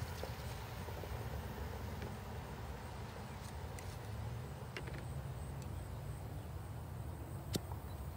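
Steady low outdoor rumble with a few light clicks and one sharper clink about seven and a half seconds in, as glass mason jars of vegetable stock are handled over a steel pot.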